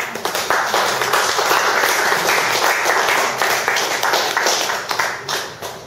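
Audience applauding: many hands clapping, starting suddenly and dying away near the end.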